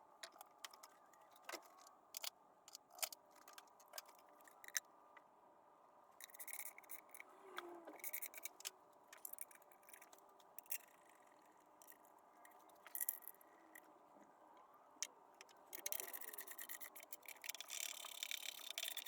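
Faint, irregular clicks and light clattering of hand tools and small parts, with two stretches of scraping and rustling, about six seconds in and again near the end.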